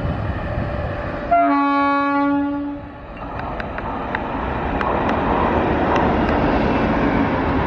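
Locomotive air horn sounding one steady blast of about a second and a half. Then a WAP-7 electric locomotive and its coaches pass close by, the rumble growing louder, with wheels clicking over rail joints.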